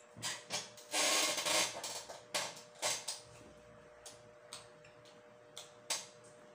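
Close-miked eating sounds: a string of short wet mouth clicks and smacks from chewing, with a louder, noisier burst lasting well under a second about a second in. A faint steady hum sits underneath.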